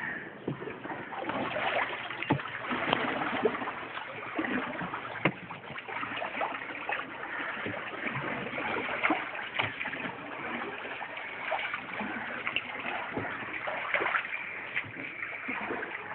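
Water splashing and sloshing around a small rowed boat moving through floodwater, with many small irregular splashes.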